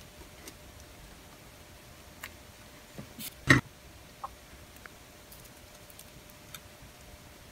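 Small tools handled on an electronics workbench during soldering: scattered light clicks and ticks, with one louder sharp knock about three and a half seconds in.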